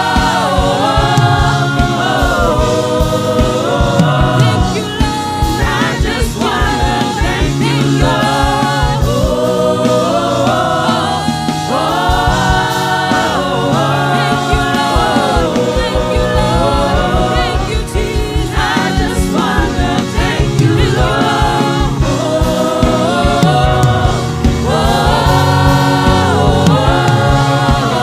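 Gospel choir singing a worship song in harmony over a band with a steady beat.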